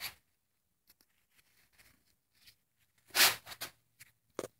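Short rustling and scraping handling sounds, with one louder rasping burst about three seconds in and a sharp click near the end.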